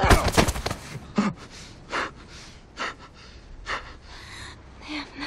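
A man breathing heavily in gasps, about one breath a second.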